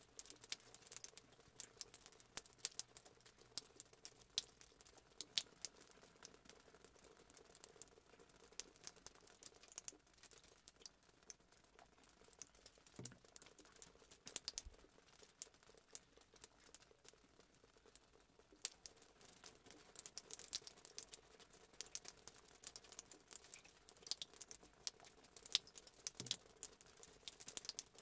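Faint, irregular scraping and ticking of a knife spreading a soft spread over slices of white bread on a plate.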